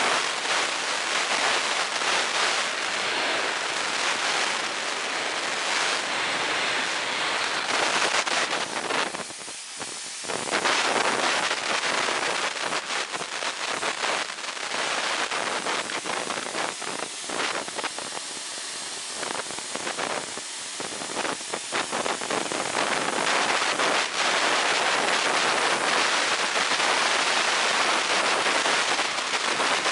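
Compressed air rushing out of a full scuba cylinder through a burst medium-pressure regulator hose: a loud, continuous rushing hiss, dipping briefly twice.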